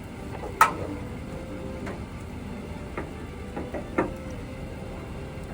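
Low steady hum inside a pickup truck's cab as it pulls away, broken by several short knocks and clicks, the loudest about half a second in and a few more close together around three to four seconds in.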